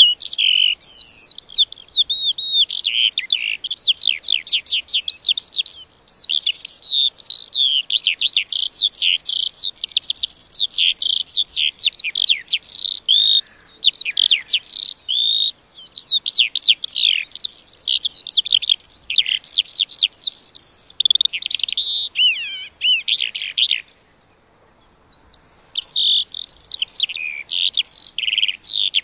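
A lark singing a long, continuous stream of fast, high warbling trills and chirps, breaking off for about a second and a half near the end before going on.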